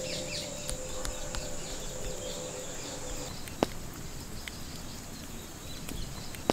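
Outdoor rural ambience: a high, steady insect drone that stops about halfway through, over repeated small bird chirps, with a few sharp clicks.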